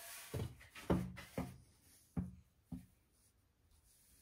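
Five knocks in quick succession over about two and a half seconds, each with a short low ring, after a brief rustle at the start; the second knock is the loudest.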